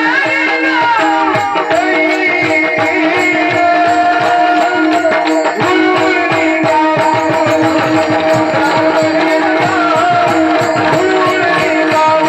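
Marathi devotional folk music. A steady held drone carries a wavering melody line, over quick hand-drum strokes and a regular beat of small cymbals.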